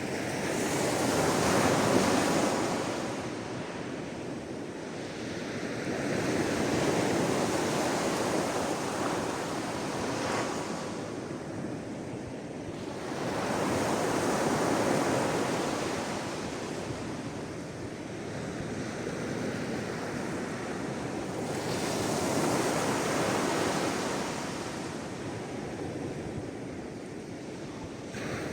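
Sea waves washing onto the shore in slow surges, each swelling and fading every several seconds, with some wind noise.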